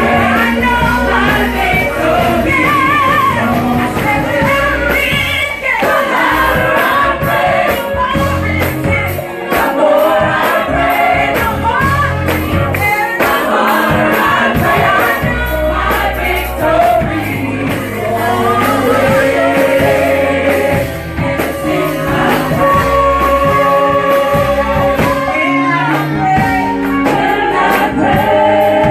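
Gospel praise-and-worship song: sung vocals with choir backing over a full band.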